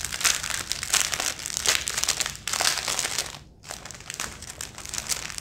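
Small clear plastic bags crinkling as they are handled and opened, with a brief pause a little past halfway.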